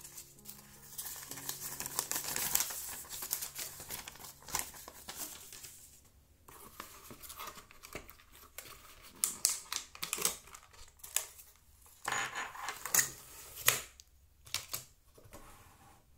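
Paper and cardboard packaging crinkling and rustling as it is handled, followed in the second half by a run of sharp clicks and clinks from the short stainless-steel tubes of a pot lid organizer being taken out and set down on a hard tabletop.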